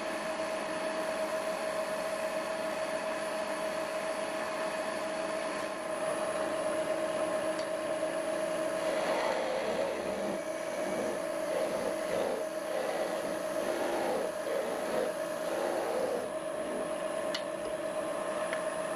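Wood lathe running with a steady motor whine. From about 9 seconds in, a chisel scrapes and cuts into the spinning wood in uneven strokes, parting the turned piece off at the headstock end, with a click near the end.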